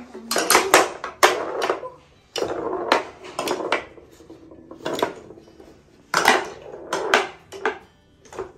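Toy gun being fired repeatedly, a series of sharp plastic clacks at irregular intervals, some in quick runs of two or three. The gun is now feeding its bullets smoothly.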